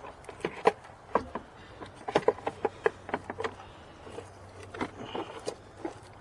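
Plastic air filter housing being handled and fitted back into place in the engine bay, with irregular knocks and clicks.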